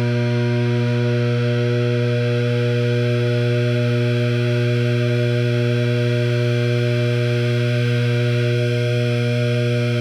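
Instrument washer running with a steady, unchanging electrical hum: one low tone with a stack of overtones above it.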